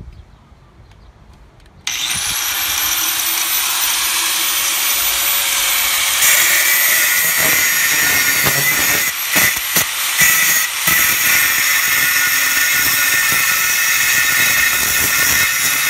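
Hercules 4-1/2 in. 7 amp angle grinder switched on about two seconds in, its whine rising as the thin metal cut-off disc spins up to speed. The disc then bites into a steel rod and runs on with a loud, steady grinding hiss, uneven for a moment near the middle.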